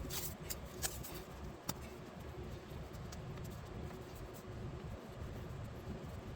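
A few short, light clicks and scuffs of hand work on parts, sharpest in the first two seconds, over a steady low background hum.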